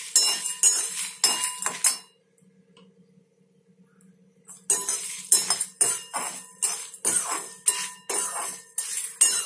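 Slotted metal spoon scraping and clinking against a metal kadai while stirring whole spices that are being dry-roasted, in quick repeated strokes. The stirring stops about two seconds in and resumes after a pause of about two and a half seconds.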